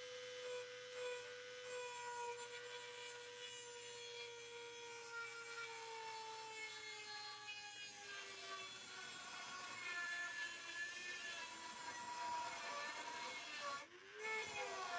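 Handheld rotary tool's small motor whining at high speed as its thin cut-off disc cuts into the steel door panel, the whine sagging slowly in pitch. About halfway through the cutting turns rougher and grittier. Near the end the sound drops out briefly and the whine rises again.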